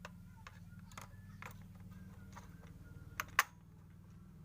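Small plastic clicks and taps as batteries are handled and fitted into a toy's battery compartment, with two sharper clicks a little after three seconds in. A steady low hum runs underneath.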